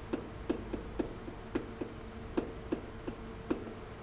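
Chalk tapping and knocking on a chalkboard as characters are written, short taps about three or four a second, unevenly spaced, over a faint steady hum.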